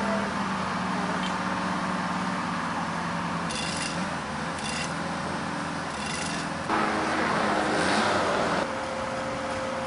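Engine of the crane or boom lift running steadily, with four short metallic clinks of steel parts being fitted. A louder rushing noise comes in near the end and stops about a second before it ends.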